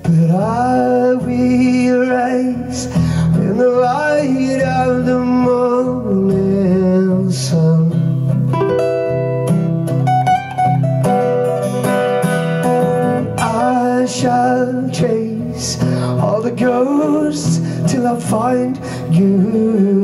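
Two acoustic guitars playing a song together, a steady strummed accompaniment under a melodic line with some notes gliding in pitch.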